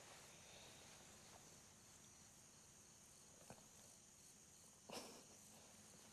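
Near silence: faint night ambience, with a soft click about three and a half seconds in and a brief rustle about five seconds in.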